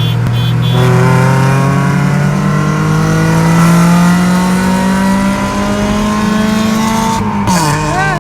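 2007 Honda Civic Si's 2.0-litre four-cylinder engine pulling hard through a gear under acceleration, its pitch climbing steadily for about seven seconds. The revs then drop suddenly near the end, as at a gear change or lift-off.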